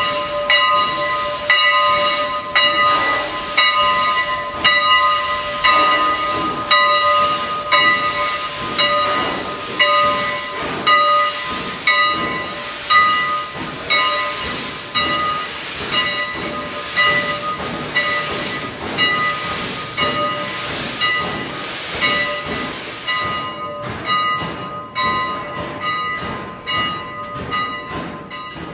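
Steam hissing in the cab of a Baldwin 2-10-0 steam locomotive, with several steady whistling tones and a hiss that pulses about once a second. The highest part of the hiss drops away near the end.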